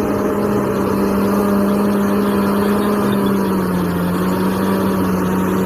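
Engine running steadily with an even low hum, a bulldozer engine sound.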